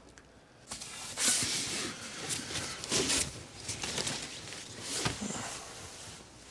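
Rustling of cloth and light knocks of items on a shelf as a cabinet is rummaged through, in several irregular bursts.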